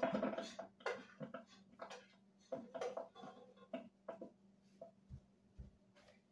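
Spoon scraping and knocking against a cooking pot as food is stirred: an irregular run of short clinks and scrapes, then two dull thumps near the end, over a steady low hum.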